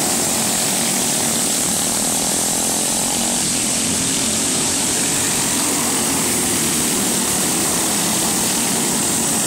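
Small go-kart engines racing past on a dirt track: a steady, loud buzz whose pitch rises and falls as the karts accelerate and back off through the turn.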